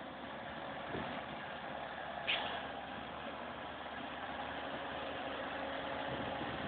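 Massey Ferguson 7480 tractor's diesel engine running steadily, with a short sharp click about two seconds in.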